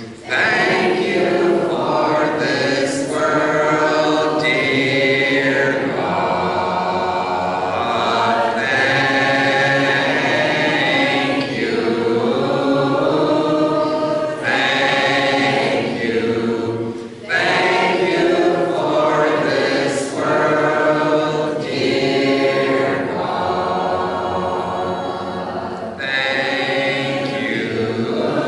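Doukhobor congregation singing a hymn a cappella in Russian, a choir of many voices holding long drawn-out phrases, with brief breaths between phrases.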